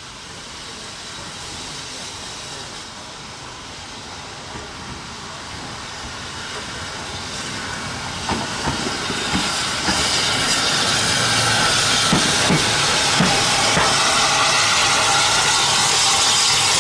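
South Eastern & Chatham Railway H class 0-4-4T steam tank engine No.263 approaching light engine, its steam hiss growing steadily louder as it draws near. A few short knocks come about halfway through.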